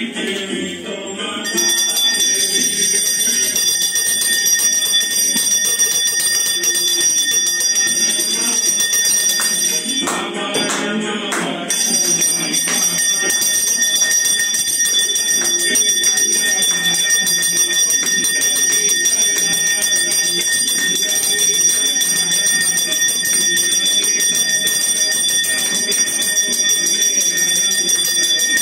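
Prayer bell rung rapidly and without pause during aarti. Its steady ringing sets in about a second and a half in and carries on, with devotional music beneath.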